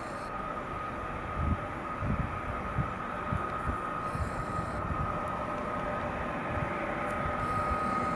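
Newag Griffin EU160 electric locomotive hauling an intercity passenger train as it rolls slowly into the platform: a steady high whine over a continuous rumble, with irregular low thumps.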